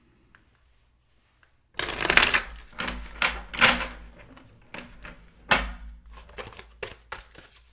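A deck of tarot cards shuffled by hand: a string of quick papery swishes and slaps that begins about two seconds in, loudest in the first couple of seconds, then lighter and more scattered.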